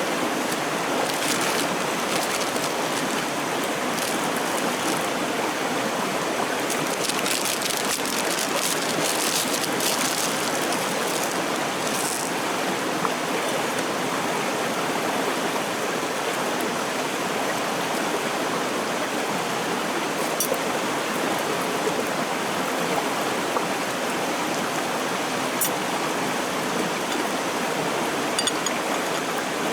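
Steady rushing of a clear stream flowing over rocks, with a few faint sharp clicks in the second half.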